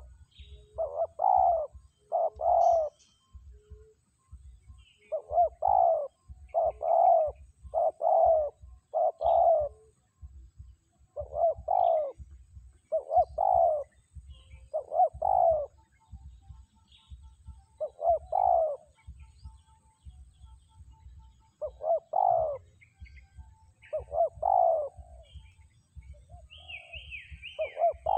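Spotted dove cooing over and over, loud, full coos in short phrases of two or three notes, with pauses between phrases. Faint chirps of small birds sound higher up, with a quick falling run of high notes near the end.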